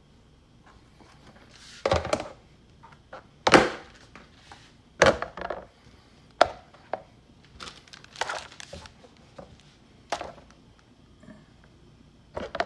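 Green plastic gold pans and kit items being handled: a series of irregular knocks, taps and rustles.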